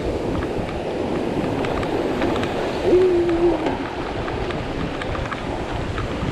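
Steady rushing noise of a swollen mountain river running fast, mixed with wind on the microphone. About three seconds in there is a brief, steady low tone lasting under a second.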